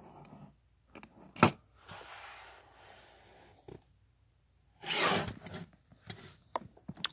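Close handling noises: a sharp click about a second and a half in, a stretch of soft hiss, a loud noisy burst about five seconds in, then several small clicks near the end.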